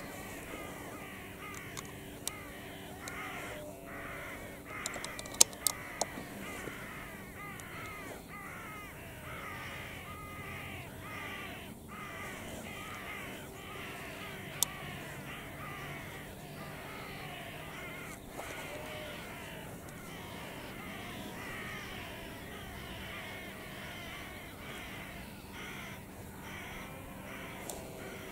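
A flock of crows cawing continuously, many birds calling over one another as they mob and dive at crow decoys. A few sharp clicks stand out about five to six seconds in.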